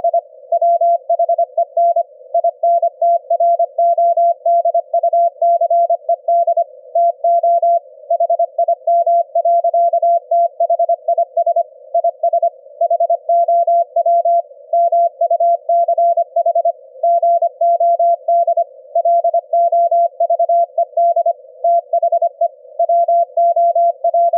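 Morse code at about 25 words per minute: a single beep tone keyed rapidly on and off in dots and dashes, the audio of a 25 Hz ELF-band CW signal demodulated by a Quisk SDR receiver. A faint receiver hiss fills the gaps between the elements.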